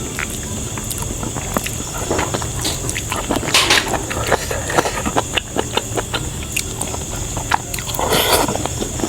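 Close-up eating sounds: chewing and wet mouth clicks, with two louder rustling noises, one about three and a half seconds in and one near the end, over a steady background hum.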